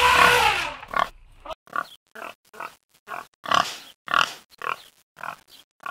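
Pig-like grunting from boars: a long, loud pitched call over the first second, then a quick run of short grunts, several a second.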